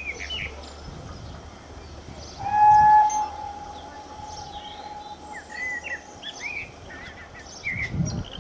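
Steam locomotive whistle from a GWR 6400-class pannier tank working an auto train: one long steady blast a little over two seconds in, loudest at first and trailing away over a few seconds. Birds chirp throughout, and there is a brief low rumble near the end.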